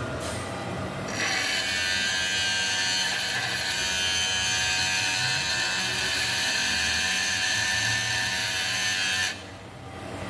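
Steel being ground on a powered grinder: a steady high grinding hiss over the motor's hum, starting about a second in and stopping suddenly near the end as the work is lifted off.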